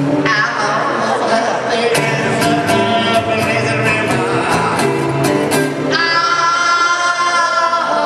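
Loud music with a singing voice.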